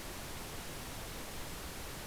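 Steady synthetic pink noise: an even, unchanging hiss spread across all pitches, with no events.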